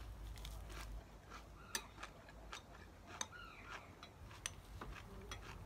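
Faint, irregular ticks and crackles of a spoon tapping and scraping a ceramic bowl of rice, with a crisp sheet of dried seaweed being handled.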